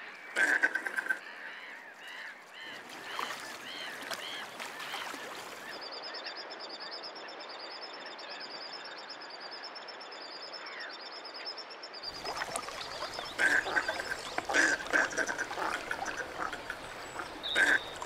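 Goosanders calling with short, repeated duck calls, loudest in the first second and in bursts over the last five seconds. In the middle a common sandpiper sings a high, wavering trill for several seconds.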